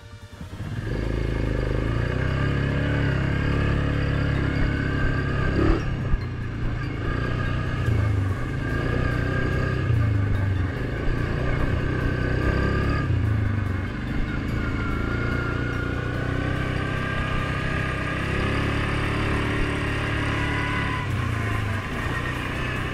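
2019 Suzuki KingQuad 750 ATV's single-cylinder engine pulling away from a stop about a second in, then running under way, its pitch rising and falling as the throttle is worked, with a higher whine over it.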